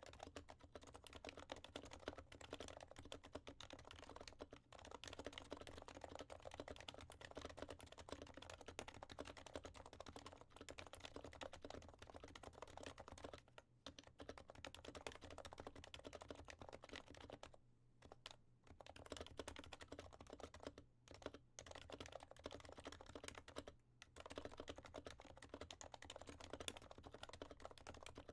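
Quiet, steady typing on an HHKB Professional Classic with lubed 45 g Topre switches fitted with silencing rings, soft keystrokes in quick succession broken by a few short pauses.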